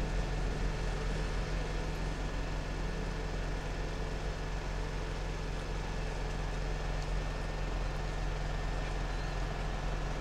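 A steady low hum over constant background noise, with no distinct knocks or clicks.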